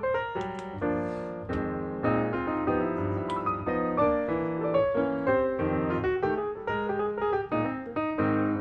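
Background piano music, a lively run of many notes.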